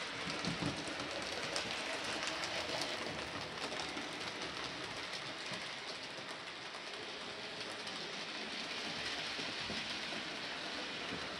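Model BR Britannia Class steam locomotive and its coaches running along the layout track: a steady rolling rattle with light clicks from the wheels.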